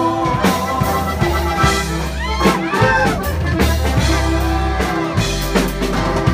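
Live Mexican regional band music: brass over a steady bass line with drum hits, played between the sung lines of a song.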